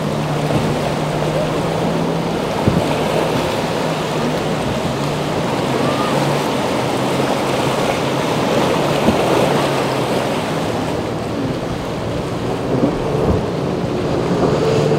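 Motorboat engines running over a steady rush of waves and wind, with a low steady engine hum through the first half that comes back near the end. A few brief knocks stand out.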